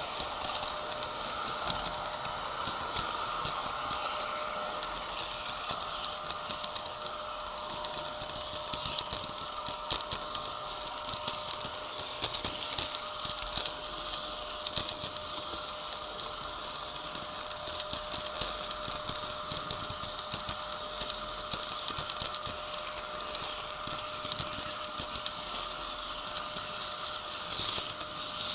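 HO scale model trains running on the layout: a steady mechanical hum of small motors and wheels on the rails, with scattered light clicks.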